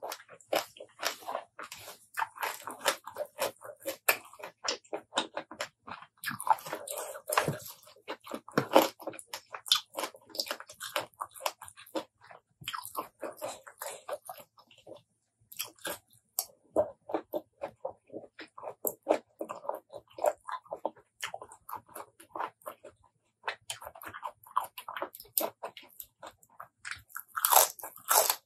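Close-miked wet chewing and crunching of spicy apple snail salad and raw vegetables: rapid, irregular mouth clicks in clusters with short pauses, and a louder crunchy bite near the end.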